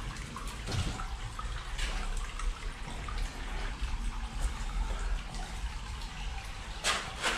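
Shallow water trickling along the floor of a storm-water tunnel, with footsteps on wet cobbles and stones about once a second; two sharper splashing steps near the end.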